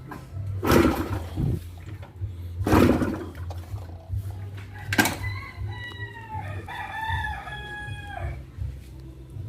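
Rooster crowing about five seconds in, one long call in two drawn-out parts, over a low uneven rumble. Two loud bursts of noise come in the first three seconds.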